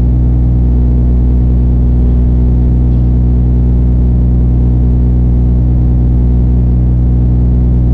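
Cargo barge's diesel engine running steadily underway, a low, even drone.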